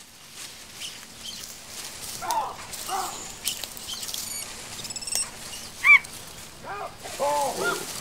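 Barbary macaques giving short, arching calls amid rustling, shaking branches as they chase through the trees; one higher, louder call comes about six seconds in and several calls cluster near the end.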